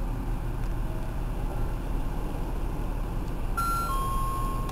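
A two-tone electronic station chime starts about three and a half seconds in, a higher note then a held lower one, repeating. Under it runs a steady low rumble.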